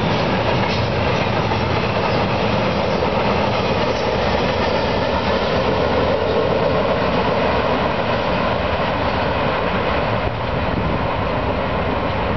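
Double-stack intermodal freight train rolling past, its container well cars making a steady noise of steel wheels on rail.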